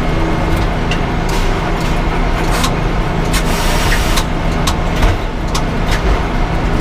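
Sawmill engine running steadily, with scattered sharp clicks and knocks over it.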